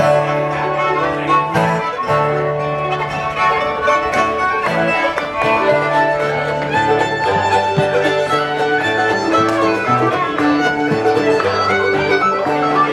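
Live string band playing a contra dance tune, a fiddle carrying the melody over strummed guitar, with a moving bass line underneath.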